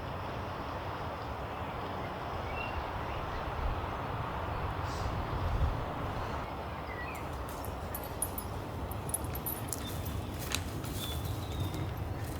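Outdoor ambience of steady wind-like rushing noise, with a couple of faint short chirps a few seconds in and scattered crackling clicks in the second half.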